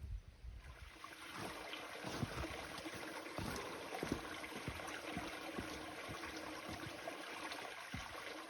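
Small woodland stream trickling and gurgling: a steady watery hiss that fades in, with many small splashes and clicks.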